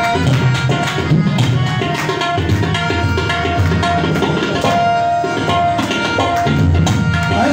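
Tabla played in a fast, dense rhythm, deep bass strokes mixed with sharp higher strokes, over a harmonium holding and repeating melody notes: an instrumental interlude without voice.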